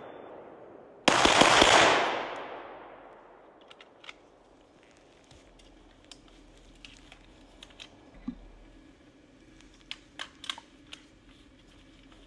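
A rapid string of gunshots lasting about a second, with a long echo fading away among the trees. After that, only scattered faint clicks and rattles of gear.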